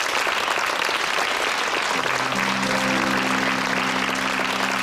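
Studio audience applauding. About two seconds in, the band comes in with a steady held chord under the applause, the start of a song's introduction.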